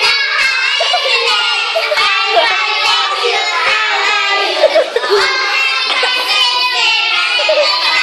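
A small group of young children singing a song together.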